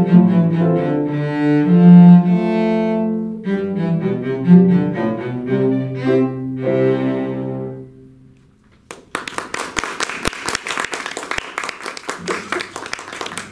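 Cello with piano accompaniment playing the closing phrases of a piece, the last note fading out about eight seconds in. About a second later the audience breaks into applause, which runs on to the end.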